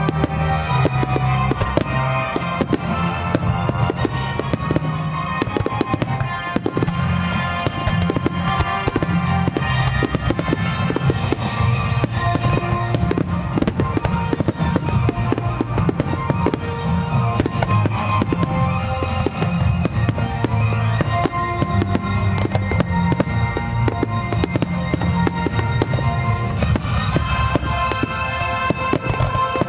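Fireworks display: dense, continuous bangs and crackles of shells bursting in quick succession, over music.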